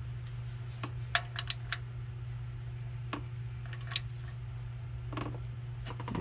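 Scattered metallic clicks and clinks of a ratchet and socket on the oil drain bolt as it is snugged into the oil pan, a few in a quick cluster about a second in and single ones later, over a steady low hum.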